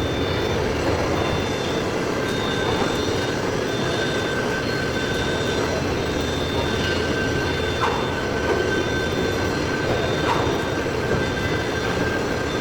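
Heavy-duty lathe turning a large steel workpiece: a steady machine drone with a thin, high, steady whine from the cut. A higher tone pulses on and off regularly, a little faster than once a second.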